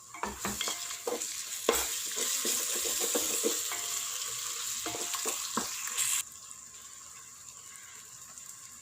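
Onion-tomato masala sizzling in a pot while a spoon stirs it, with scattered knocks of the spoon against the pot. The sizzling cuts off suddenly about six seconds in.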